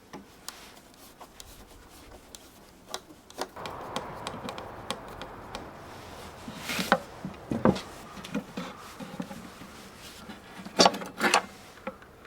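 Workshop handling sounds: scattered clicks, knocks and rubbing of tools and parts being handled, with a few louder clattering knocks about seven seconds in and again near the end.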